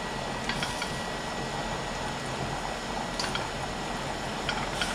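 Shrimp bubbling in a wok of hot cooking liquid as a slotted spoon stirs them, with a few light clicks of the spoon against the pan; a pot of pasta water boils alongside.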